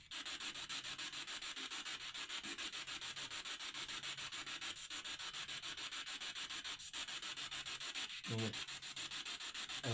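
Spirit box (ghost box) sweeping through radio stations: a steady hiss of static chopped into rapid, even pulses, with a brief voice-like fragment near the end.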